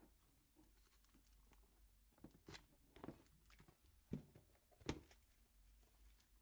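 Quiet rustling and a few soft knocks of plastic binders and paper files being handled on a shelf, over a faint low hum.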